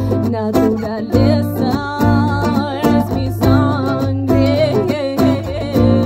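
Live band music: acoustic guitar and electric guitar playing over a steady cajón beat, with a wavering lead melody line in an instrumental passage.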